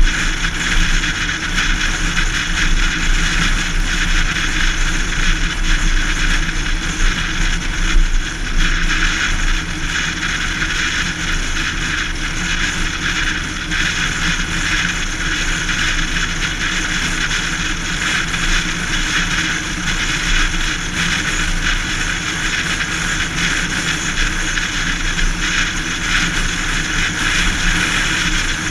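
Steady road noise of a car cruising at highway speed: tyre hum and rushing wind, unbroken throughout.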